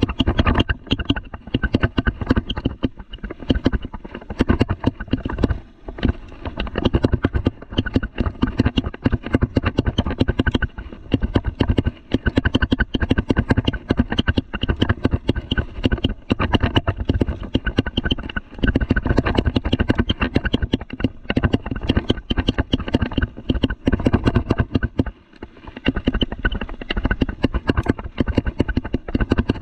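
Mountain bike rattling and clattering as it rides down a dirt trail: a constant run of rapid knocks from the bike's parts and tyres over bumps, easing briefly about 25 seconds in.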